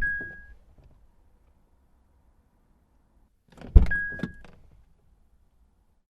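Car door thudding shut at the start and again about four seconds in, each thud followed by a short high beep.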